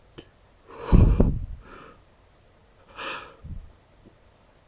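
A man breathing heavily close to the microphone: a loud, rumbling exhale about a second in, then a softer breath about three seconds in.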